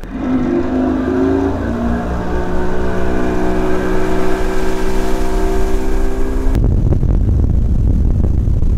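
Mercury 150 outboard motor pushing the bass boat up to speed: the engine note climbs over the first two seconds, then holds steady at cruising speed. About two-thirds of the way in the engine tone cuts off abruptly, leaving a low rushing rumble.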